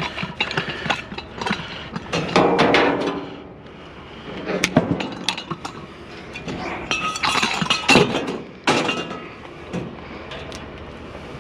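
Irregular metallic clinks and knocks from hand tools and metal parts being worked on while a power cord is cut free from a scrapped item, with busier clattering twice.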